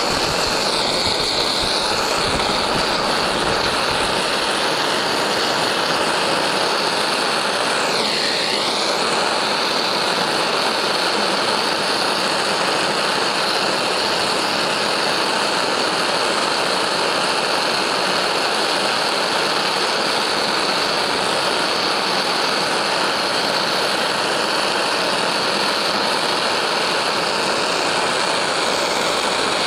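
Steady, unbroken rushing noise of the heating tool whose nozzle is held on the brass case necks, heating them to anneal them.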